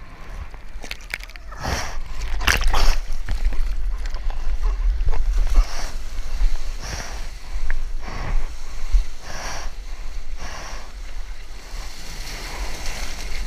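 Choppy water splashing and sloshing against a soft-top surfboard as the surfer paddles through whitewater by hand, with two heavy splashes early on and softer splashes about once a second after that. A steady low rumble of wind on the microphone runs underneath.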